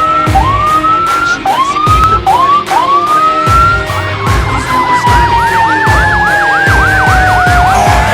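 Fire engine sirens sounding: a run of short rising whoops, then from about halfway a fast warbling yelp over a slowly falling tone.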